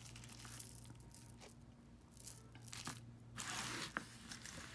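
Rustling and crinkling in short bursts as pieces of jewelry are handled and pulled from a bag, with a light click near four seconds in.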